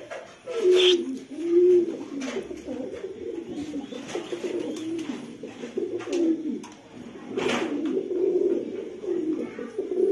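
Danish tumbler pigeons cooing over and over, low coos that rise and fall in pitch. A brief sharp noise cuts in about seven and a half seconds in.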